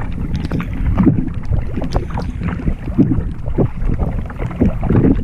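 A canoe being paddled through choppy water, with paddle strokes and water splashing and lapping against the hull in irregular bursts, and wind buffeting the microphone.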